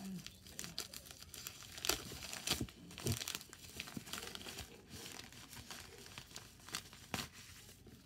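Plastic mailer bag crinkling and tearing as it is pulled open by hand at its glued seal, in irregular crackles with a few sharper snaps.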